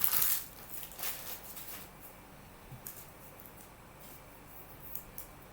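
Trading cards and their foil packs being handled: a short rustle at the start, another a second in, then a few faint ticks near the end.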